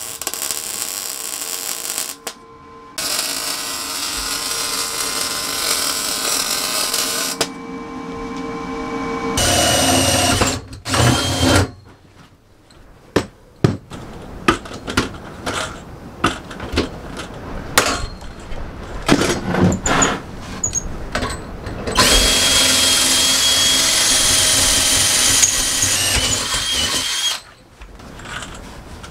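MIG welder arc running steadily on 1-inch square steel tubing in two runs over the first seven seconds or so, broken by a short pause. Then an angle grinder works the steel in runs, the longest near the end with a steady whine, and scattered metal knocks and clanks come in between.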